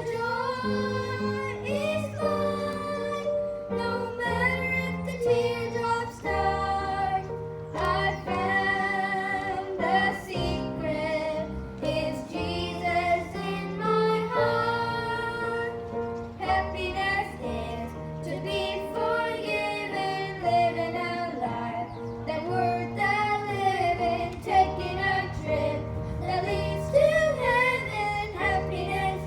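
Gospel song sung by a solo voice over instrumental accompaniment with a steady bass line.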